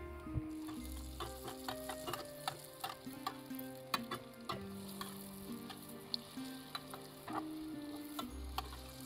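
Yeast doughnut rings frying in hot oil in a stainless steel pot: a steady sizzle with many scattered crackles and pops. Quiet background music plays under it.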